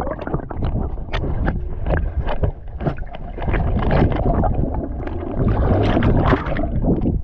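Water splashing and sloshing close to the microphone in many short irregular splashes, with wind rumbling on the microphone.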